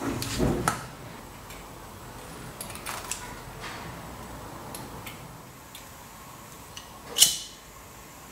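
Close handling noises of a small bench job: a rustle at the start, then scattered light clicks as thin copper wire is handled and snipped with side cutters. About seven seconds in comes a sharp, louder click as a pocket lighter is struck.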